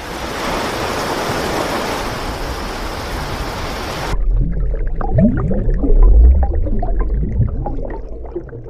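A steady, even rushing noise for about four seconds, then an abrupt cut to a low rumble with scattered clicks and a few short, low sliding tones.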